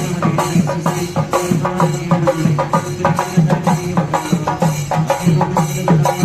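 Chenda melam: a troupe of Kerala chenda drums beaten fast and loud, about five strokes a second, with cymbals ringing over a steady low drone.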